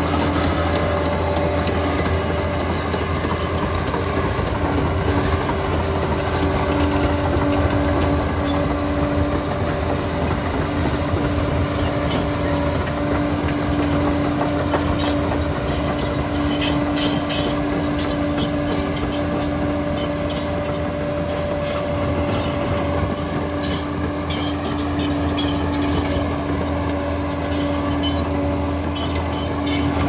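Liebherr 746 crawler dozer working, its diesel engine running steadily under load with a steady hum. Scattered clicks and clanks of the steel tracks come through, busiest in the middle stretch.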